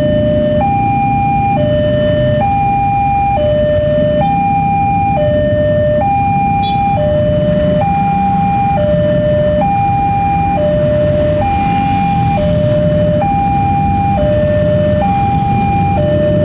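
Level-crossing warning alarm sounding a steady two-tone high-low signal, switching pitch about once a second, meaning the barrier is down and a train is due. Under it is the low, continuous rumble of many motorcycle engines idling in the queue.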